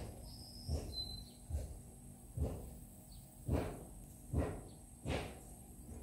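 Footsteps at an even walking pace, six dull thumps about one every 0.9 s, with a brief high bird chirp in the first second.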